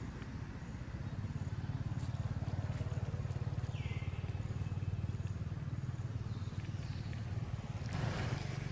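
An engine running steadily, a low continuous hum. About four seconds in, a single short falling call cuts through, and a brief burst of noise comes near the end.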